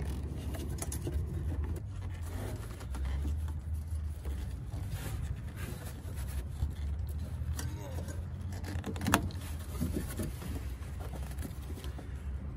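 Hands working a rubber hose onto a fitting, with light rubbing and handling noises and one sharp click about nine seconds in, over a steady low rumble.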